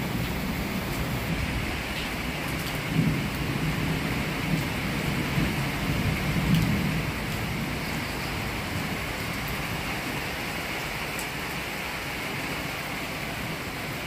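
Heavy rain falling steadily, with low rolling thunder that swells twice in the first half.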